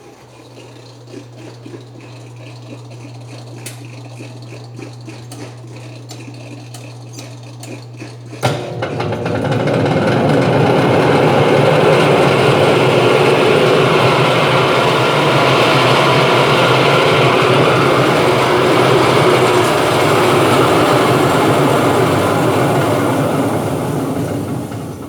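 Brastemp washing machine running with a steady low motor hum and light ticking. About eight seconds in, it abruptly breaks into a loud, rough, tractor-like clattering rumble that holds steady and then dies away at the very end.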